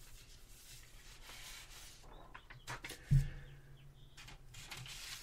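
Faint room tone in a pause between talk. A few small clicks come about two and a half seconds in, then one short, low thud a little after three seconds.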